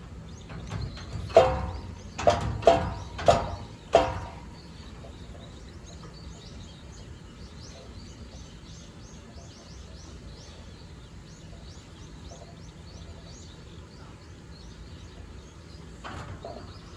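About five loud, ringing metallic clangs in the first few seconds, typical of a hippo bumping against its enclosure's metal gate or barrier. Then small birds chirp over a steady outdoor background.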